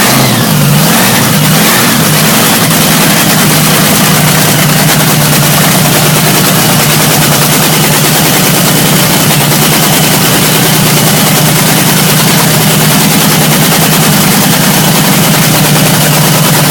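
V8 drag-racing engine running loud during a warm-up, just after starting. It wavers in the first second or two, then holds a steady fast idle.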